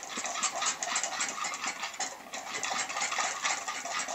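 Wire whisk beating a dry spice mix of flour and ground seasonings in a small stainless steel bowl: rapid, steady scraping and clinking of the wire tines against the metal.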